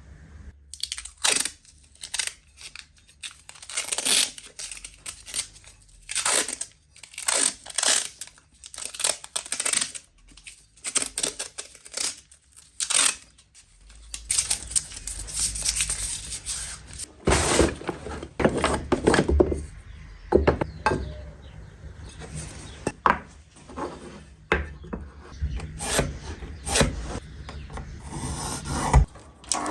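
A long series of short scraping strokes of hand work on a workpiece, some coming quickly one after another, heavier and denser from about halfway through.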